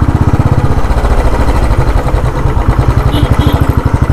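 Motorcycle engine running steadily while riding, its firing heard as a fast, even low pulsing, with road and wind noise over it.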